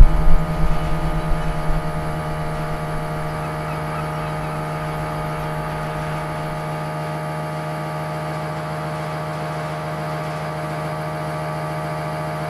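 Steady machine hum with one strong low tone and many fainter higher tones above it. A few louder knocks come in the first two seconds.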